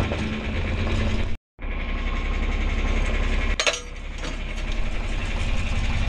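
John Deere 4020 tractor's six-cylinder engine running steadily with a mechanical clatter. The sound drops out completely for a moment about a second and a half in, and a single sharp metal clank rings out about three and a half seconds in.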